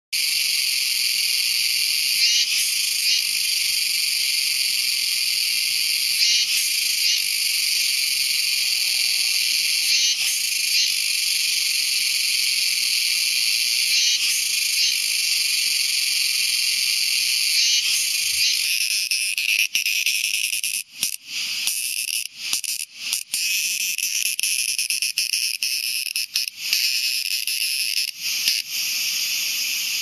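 Kuroiwa's cicada (Meimuna kuroiwae) singing: a loud, high-pitched buzz with regular brighter pulses, which turns choppier with short breaks about two-thirds of the way through.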